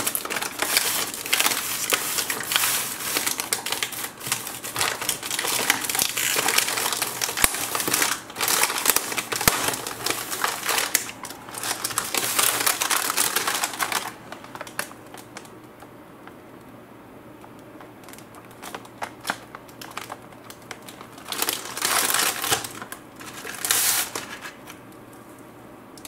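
Plastic cookie wrapper crinkling and rustling as a packet of Oreo cookies is torn open and handled, dense for about fourteen seconds. After that, shorter crinkles come in a few bursts as the plastic tray of cookies is pulled out.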